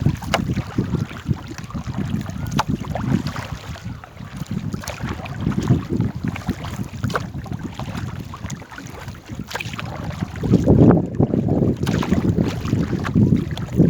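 Wind buffeting the microphone in uneven gusts, strongest about eleven seconds in, over the sounds of a small paddled boat on a river, with scattered short knocks and splashes.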